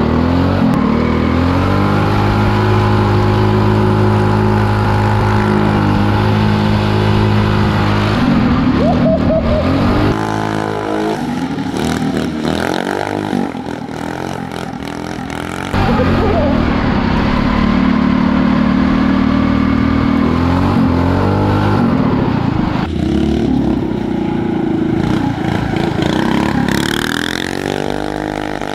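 Drift kart's 225cc engine running hard around the track, held at steady revs for stretches and revving up and down between corners. There is an abrupt jump in loudness about halfway through.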